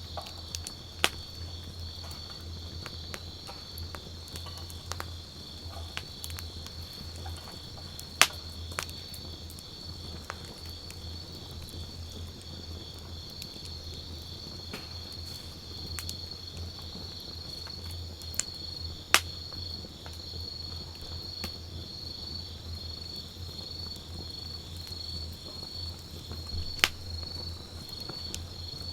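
Wood campfire crackling with light ticks and a few loud, sharp pops, over a steady, pulsing high chirping of insects such as crickets.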